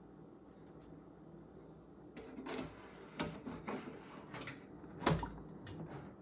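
Hands handling the plastic parts of a Vicks Warm Steam humidifier: a run of clicks and knocks starting about two seconds in, the loudest about five seconds in, over a faint steady hum.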